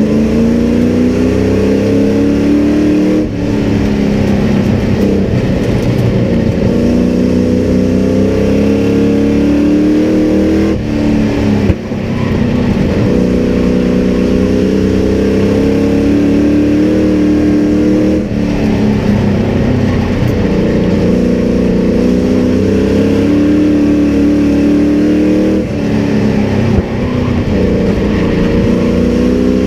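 Sport truck's race engine heard from inside the cab at racing speed. The revs climb along each straight and drop sharply when the driver lifts for a turn, about every seven to eight seconds.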